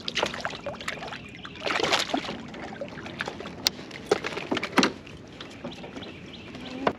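Water splashing and sloshing with scattered sharp knocks and clicks against a small boat, as a hooked shad is brought in and landed; the loudest splashing comes about two seconds in, with a hard knock near the five-second mark.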